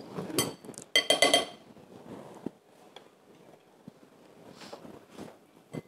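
Metal spoon clinking against a glass mixing bowl while a tuna filling is stirred: a few ringing clinks in the first second and a half, then quieter taps and scraping.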